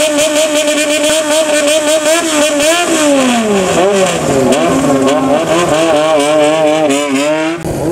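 Straight-piped custom motorcycle engine playing a throttle 'call'. It is held at high revs with a wavering pitch for about three seconds, then drops and climbs in a run of quick rev swoops, and stops abruptly near the end.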